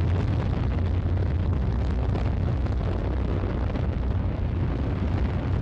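Soyuz-2.1b rocket's first- and second-stage engines running about a minute into a normal flight: a steady deep rumble with a faint crackle.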